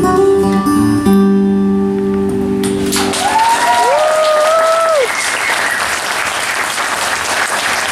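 Acoustic guitar playing its closing notes, which ring out and give way about three seconds in to audience applause. A rising-and-falling cheer from the crowd sounds over the clapping shortly after the applause begins.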